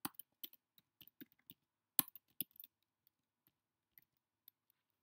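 Typing on a computer keyboard: a quick run of keystroke clicks, the sharpest about two seconds in, then a few scattered taps that die away near the end.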